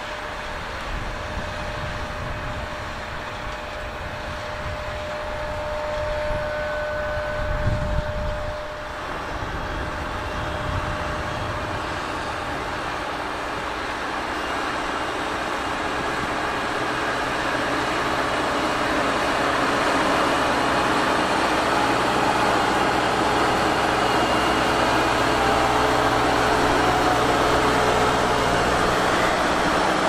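Diesel engine of a 156 hp Merlo MultiFarmer 40.9CS telehandler running under load as it pulls a four-furrow plough through the soil. It grows gradually louder over the second half.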